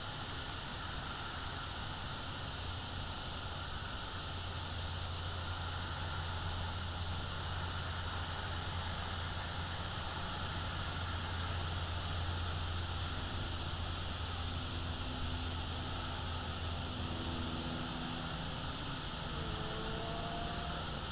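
Steady outdoor hiss with a low motor hum that swells about four seconds in and fades near the end, like distant engine noise.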